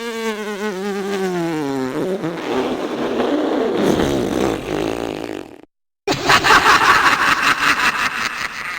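Two comedy sound effects back to back. First, a wavering, buzzy tone slides downward and turns into a raspy buzz that stops suddenly after about five and a half seconds. After a short gap, an engine-like rapid pulsing noise starts.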